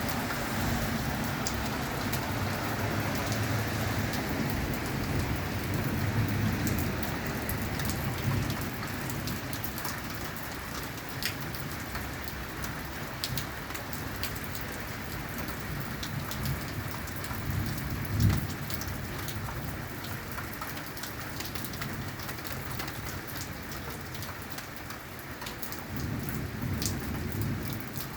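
Heavy thunderstorm rain falling steadily, with drops ticking on a hard surface. Low thunder rumbles swell and fade several times, and there is one sharp, louder clap about two thirds of the way through.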